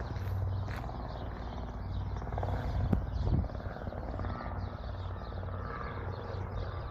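Piston-engine light aircraft droning steadily overhead, with a brief loud thump about three seconds in.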